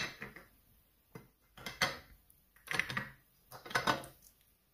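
Caramel-coated fruit on wooden skewers being set down and shifted on a ceramic plate: about five sharp clinks and knocks against the plate, roughly a second apart.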